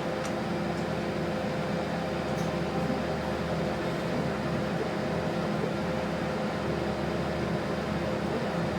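Cabin sound of an Adelaide Metro 3100-series diesel railcar under way: a steady mechanical hum with a few held tones over a low rumble and a faint hiss.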